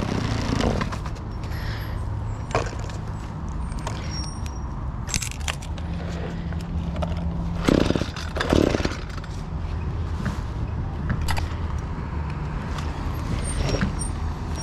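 Shindaiwa brushcutter's two-stroke engine, out of fuel, being pulled over on its recoil starter: two quick pulls about halfway through, each a short rasp, and the engine does not catch. Scattered clicks and handling knocks sit over a low steady hum.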